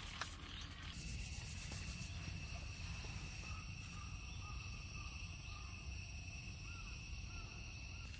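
Steady high-pitched insect trill over a low steady rumble, with a few faint short chirps in the middle.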